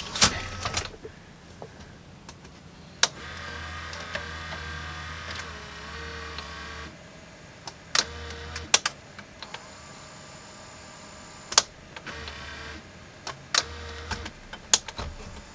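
Sharp VC381 VCR mechanism taking in a dummy tape: sharp clicks and clunks from the cassette carriage and mode-change parts, with a small motor whirring in several stretches of a few seconds between them.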